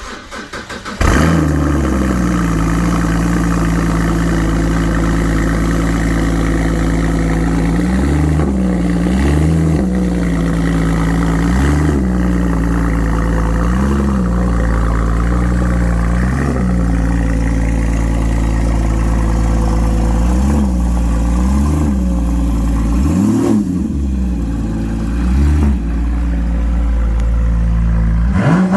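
Porsche Cayman GT4 (981) 3.8-litre flat-six starting up, the revs flaring and settling to a steady idle, then about ten short throttle blips, each rising and dropping back to idle.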